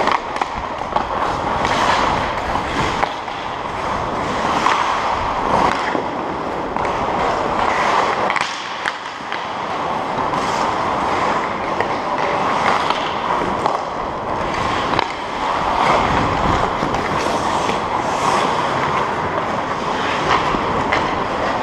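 Ice hockey skate blades scraping and gliding on arena ice in a run of repeated strides, picked up close by a helmet-mounted camera.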